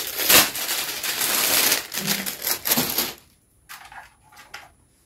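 Clear plastic wrapping crinkling and crackling as it is pulled off a stainless-steel rotating spice rack. The noise stops suddenly about three seconds in, followed by a few brief, fainter rustles.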